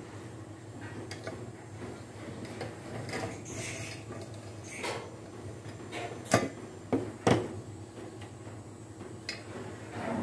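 Hand tools and small steel pieces clinking and knocking as a homemade angle-bar bender is worked with pliers. Three sharper metal knocks come about six to seven and a half seconds in, over a low steady hum.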